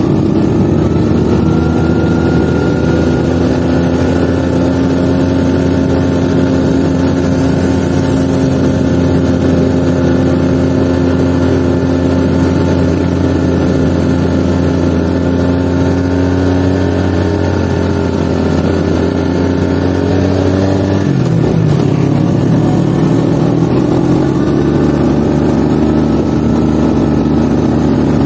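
Honda Astrea Legenda motorcycle's single-cylinder four-stroke engine running as it is ridden, its note rising slowly. About three-quarters of the way through the engine note drops suddenly, then climbs slowly again.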